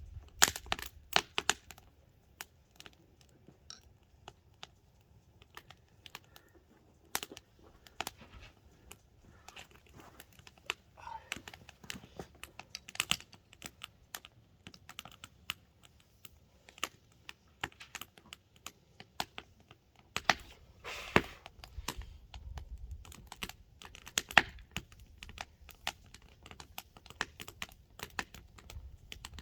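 Burning log firewood crackling, with irregular sharp pops and snaps.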